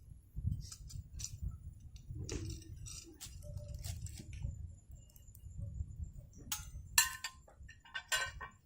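Scattered clinks and clicks of metal cooking utensils and tableware, irregular and the loudest near the end, over a low steady rumble.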